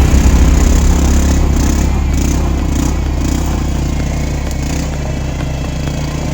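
ATV engine running steadily, a deep drone that slowly gets quieter.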